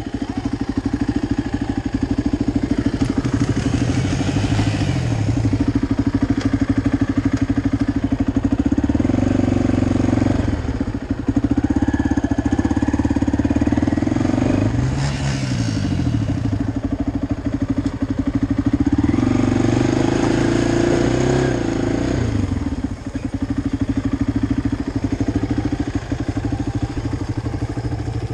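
Quad (ATV) engine running close by at a steady idle, its revs swelling up and dropping back three times: about a third of the way in, around the middle, and about three-quarters through.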